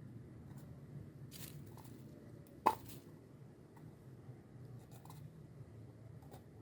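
Faint handling noise as a container of fatwood shavings is opened, with a few sharp clicks and crunches, the loudest a little under three seconds in.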